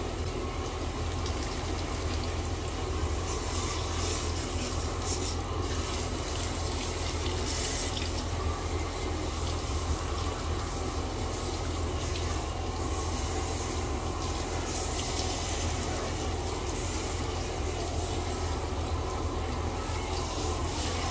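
Water running from a handheld shower sprayer, spraying steadily onto a dog's wet coat and into the bathtub, with a low hum underneath.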